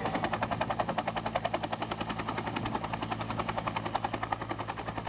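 Bell UH-1 'Super Huey' helicopter's two-bladed main rotor beating steadily at about ten beats a second, over a steady low engine and transmission hum, growing slightly fainter near the end.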